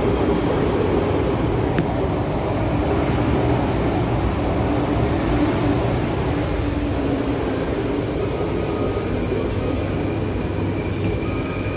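Cabin noise of an MTR SP1900 electric multiple unit running and slowing into a station: a steady rumble of wheels and motors. Thin high squealing tones join in over the second half as it brakes.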